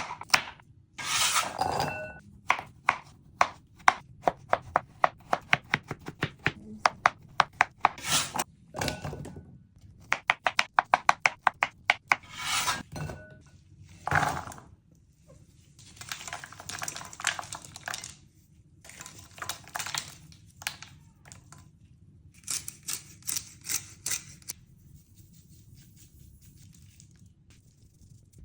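A knife chopping on a cutting board in quick runs of sharp strokes, with a few longer scraping or rustling stretches in between. The strokes stop near the end.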